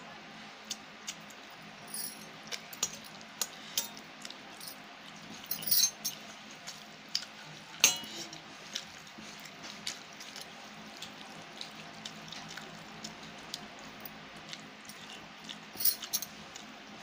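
Fingers scraping and gathering rice on a stainless steel plate, with sharp metallic clicks and taps of fingers and rings against the steel scattered throughout, the loudest about 6, 8 and 16 seconds in.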